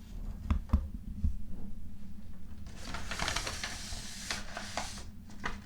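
Packaging being handled: a few light clicks and knocks, then about two seconds of crinkly rustling.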